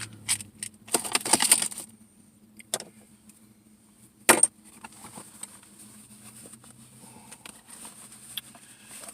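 Small metal hand tools clinking and rattling as they are handled and taken out of a tool pouch, with a run of rattles in the first two seconds and one sharp click about four seconds in.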